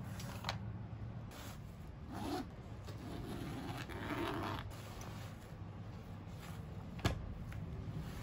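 Handling a Quran in a zippered leather cover: rubbing and scraping as it is slid off a book stand and laid on a desk, and its zipper being drawn open. There is one sharp knock near the end, and a low steady hum runs underneath.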